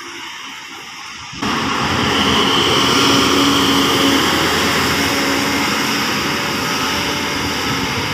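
Daewoo BH117H coach's diesel engine running hard under load as the bus climbs past close by, loud engine and tyre noise with a steady high whine and a low hum. It comes in suddenly about a second and a half in.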